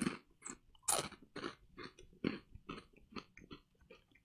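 Deep-fried miso rice cracker being bitten and chewed: a sharp crack of the first bite, then crisp crunches about three a second that gradually fade as it is chewed down.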